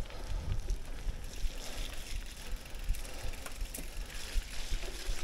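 Mountain bike rolling along leaf-covered dirt singletrack: tyre noise over dirt and leaves with scattered clicks and rattles from the bike, over an uneven wind rumble on the microphone.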